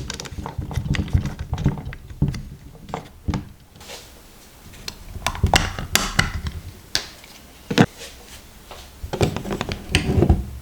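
Aperture ring of a Jupiter-36B vintage Soviet lens turned through its click stops: a run of sharp mechanical clicks in irregular clusters with short pauses, one especially strong click near the middle.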